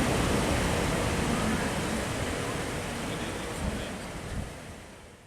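Steady rushing noise of wind on the microphone, fading away toward the end.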